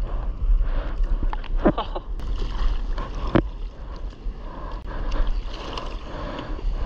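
Seawater sloshing and splashing close to a surfer's GoPro, with wind buffeting the microphone in a low rumble. A few sharper splashes stand out, about a second and a half in and again at about three and a half seconds.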